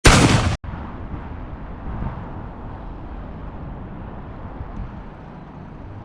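A loud burst of noise lasting about half a second cuts off abruptly, then a vehicle runs on with a steady low rumble.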